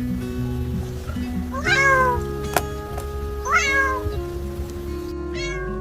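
Cat meowing over background music: two clear meows, with shorter ones near the end.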